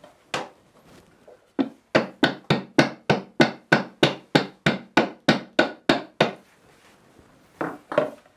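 A steady run of about sixteen light knocks, roughly three a second, with one knock before them and two more near the end. A lid laid over a half-filled firework shell is being tapped to settle the packed stars in place.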